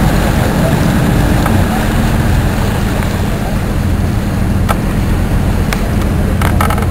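A boat's engine running with a steady low drone as it tows a beached boat off the shore by rope. A few light clicks come in the last couple of seconds.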